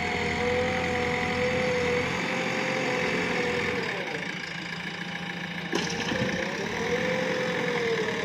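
JCB 3DX backhoe loader's diesel engine running under hydraulic load, with a steady whine whose pitch sags about halfway through and then climbs back. A single sharp clank comes a little later.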